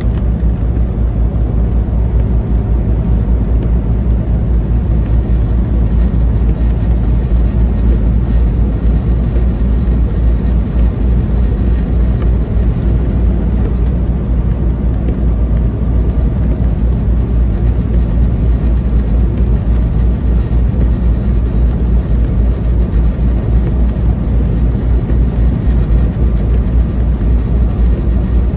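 A semi truck cruising on the highway, heard from inside the cab: a steady low drone of the diesel engine and tyre and road noise.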